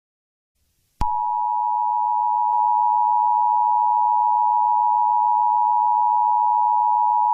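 Steady electronic alert tone, a single unwavering pitch near 1 kHz, that starts suddenly about a second in after near silence and holds level, with a faint hiss under it.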